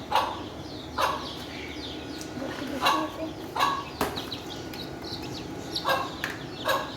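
Chickens calling: short clucks and chirps, one every half second to a second, with a single sharp tap about four seconds in.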